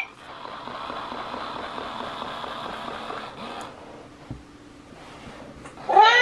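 Sweet Petzzz electronic toy cat: a steady soft rushing noise for about three and a half seconds, a quieter stretch with a faint click, then a recorded meow from its speaker near the end.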